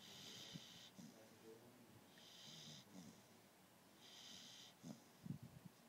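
Sleeping beagle snoring softly: three wheezy, hissing breaths about two seconds apart, with a few short snorts about five seconds in.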